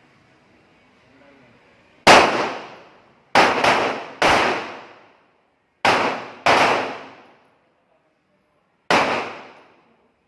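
Pistol shots: seven sharp reports at uneven spacing, two of them in quick succession about three and a half seconds in. Each trails off in about a second of echo.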